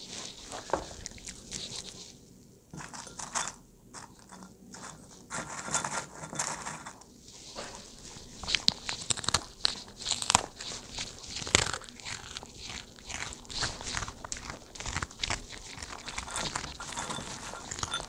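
Small dog chewing and crunching chopped vegetables such as broccoli from a bowl, with irregular sharp crunches and clicks of its teeth.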